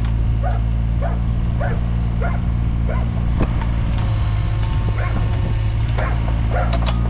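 Mini excavator's diesel engine running steadily while a dog barks repeatedly, with a sharp knock about halfway through.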